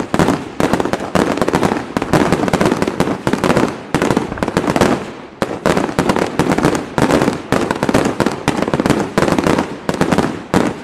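Fireworks display: a rapid, nearly continuous run of loud bangs and reports, several a second.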